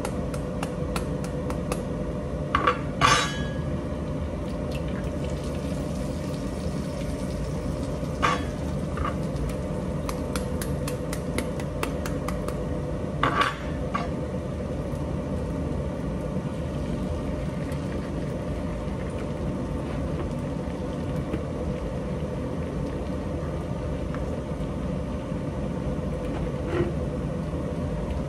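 Eggs being cracked against the rim of a frying pan: a few sharp knocks, the loudest about three seconds in and others about eight and thirteen seconds in, with light clicking between them, over a steady background hum.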